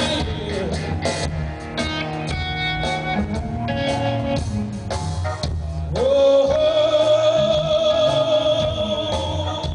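Live blues-rock: electric guitar and bass playing, with a man singing. About six seconds in, a long note with vibrato slides up and is held for several seconds.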